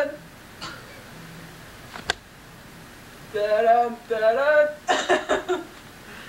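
A voice singing a short wordless phrase of wavering held notes about three seconds in, followed at once by a few quick choppy vocal sounds. There is a single sharp click about two seconds in.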